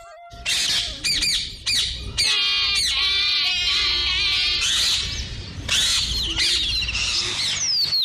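A flock of parrots squawking and chattering, many shrill calls overlapping and repeating, over a steady low rumble.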